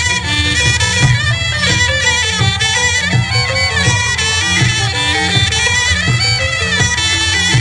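Khmer traditional dance music: a shrill, reedy wind instrument plays a wavering, ornamented melody over a steady drum beat of about one stroke every two-thirds of a second.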